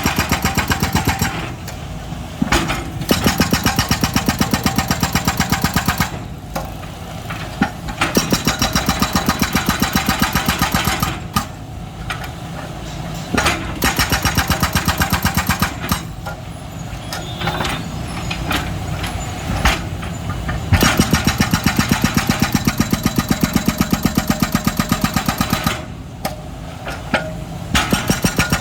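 Excavator's diesel engine running, its level rising and dropping back every few seconds as the machine works.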